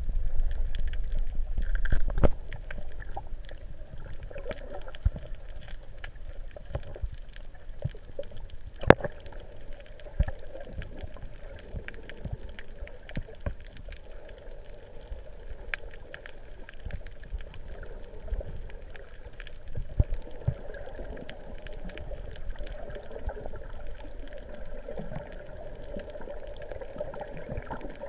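Underwater sound heard through a GoPro's waterproof housing: a muffled, steady water rumble with scattered sharp clicks and pops. It is louder for the first two seconds or so.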